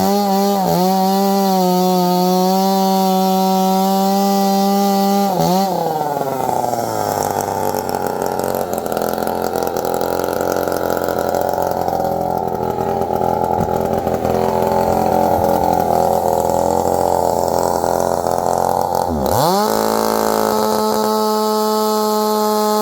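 Two-stroke chainsaw at full throttle. About five seconds in its pitch drops and the engine labours with a rough, grinding sound as the chain bites into an aluminum wheel rim. Near the end it comes free and its pitch sweeps back up to a steady high whine.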